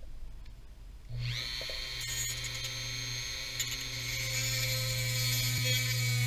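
A Dremel rotary tool switches on about a second in and runs at a steady speed, trimming the metal bracket of an LED headlight bulb.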